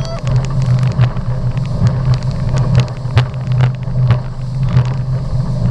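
Motorboat running fast: a steady, loud, low engine drone, with frequent short thumps layered over it.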